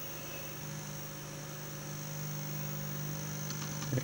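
Steady electrical hum with faint higher whines, most likely from the small inverter board running a cold-cathode lamp off a 9-volt battery, with a short low sound right at the very end.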